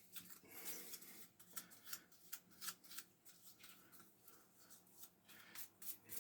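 Faint, scattered small clicks and rustles from hands handling small parts while the inside of a Stihl 020T chainsaw's engine is being oiled during reassembly.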